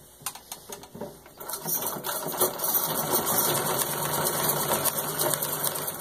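1922 Singer 127 vibrating-shuttle treadle sewing machine, freshly serviced, stitching through six layers of denim: a few slow clicks at first, then from about a second and a half in a rapid, steady clatter of the needle mechanism running at speed.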